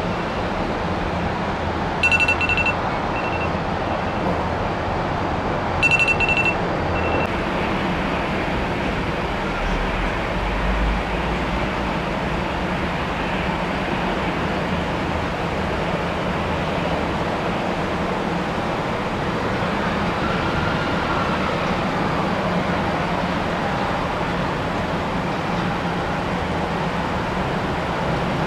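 Steady, even noise of airliners' engines at the airfield, with two short bursts of high electronic beeping about two and six seconds in.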